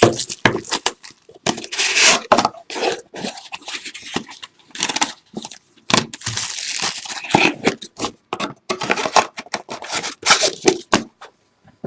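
Packaging of a sealed trading-card box being torn and crinkled open, in a run of irregular rasping tears and crackles.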